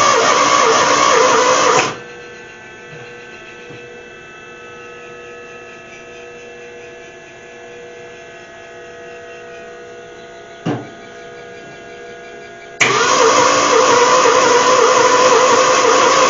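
Freshly rebuilt Ford Falcon engine running roughly on its first starts, dying out about two seconds in. After a pause broken by a single click, it fires and runs again abruptly near the end.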